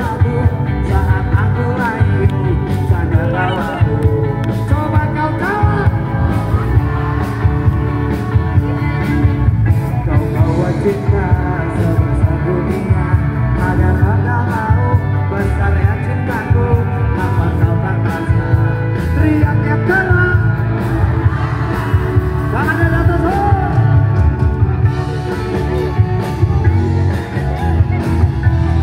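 Live band music: a singer over a steady drum beat and heavy bass.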